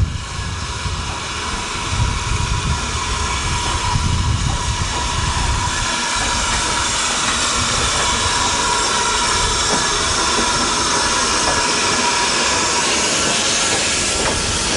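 Steam locomotive moving slowly alongside a station platform with a steady, loud hiss of steam. There is a low uneven rumble in the first few seconds; the hiss settles in by about the middle.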